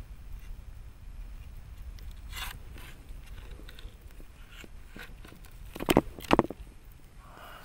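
Underwater knocks and scrapes of a hand spear's prongs being jabbed into a hole in the rocky seabed, over a steady low rumble, with two sharp knocks about half a second apart near the end.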